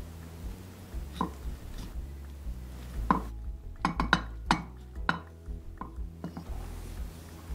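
Light knocks and clicks against a black pot as stuffed fried-tofu pouches and napa cabbage are pressed into it by hand. There is one knock about a second in, then a quick cluster of about eight between three and six and a half seconds in.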